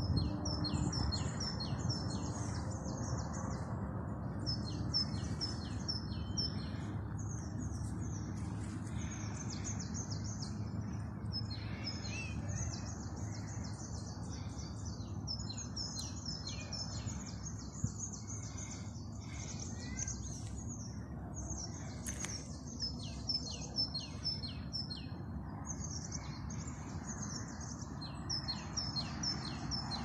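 A chorus of small birds chirping in quick, high series, going on throughout with many overlapping calls, over a steady low background rumble.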